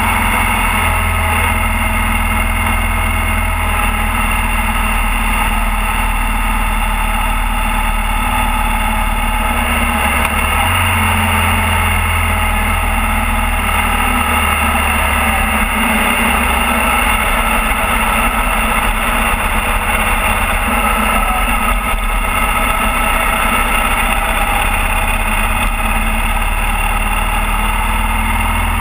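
Motorcycle engine running steadily at cruising speed, with constant wind and road noise. The engine note shifts about ten seconds in.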